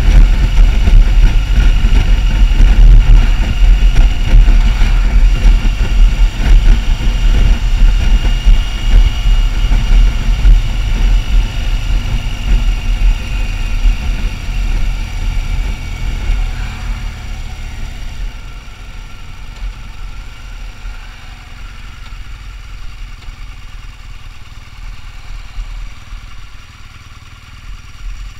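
Motorcycle riding along a road with heavy low wind rumble on the microphone and a faint steady whine slowly falling in pitch. The rumble and noise drop off about two thirds of the way in as the bike slows down to pull over.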